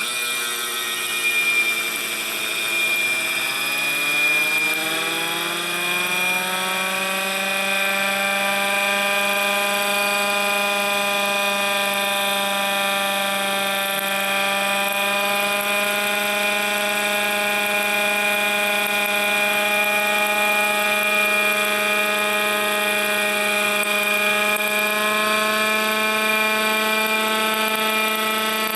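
MiniMite air raid siren running: its wail climbs slowly in pitch over the first several seconds, then holds nearly steady, with a constant high whine above it. The slow climb is the split, brittle plastic chopper slipping on the motor shaft and lagging behind the motor running at full speed.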